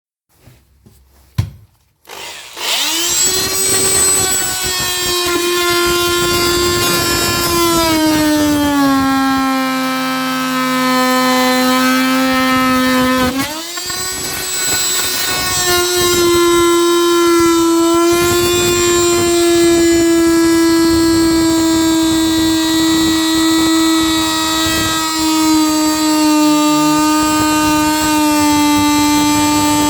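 An electric woodworking power tool is switched on with a click, and its motor whines up to speed. Its pitch sags for several seconds as it works the wood, dips sharply about halfway through, then climbs back and runs steady.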